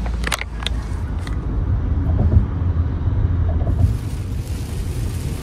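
Car cabin road noise while driving on a highway: a steady low rumble, with a few sharp clicks in the first second or so and a hiss joining about four seconds in.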